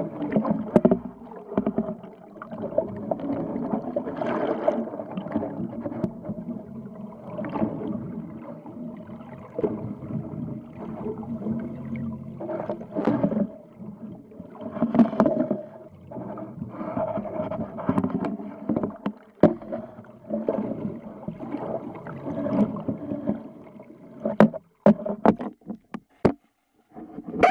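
Muffled underwater drone of a boat's engine, heard through a submerged camera housing, with water rushing and bubbling over the camera. Near the end the camera breaks the surface, with sharp knocks and splashes and brief cut-outs.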